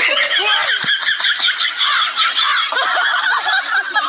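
High-pitched, rapid giggling laughter that runs without a break.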